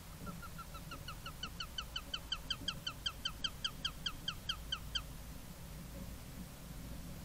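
Eurasian sparrowhawk calling a rapid series of short, downward-slurred notes, about five a second, growing louder and then stopping abruptly about five seconds in.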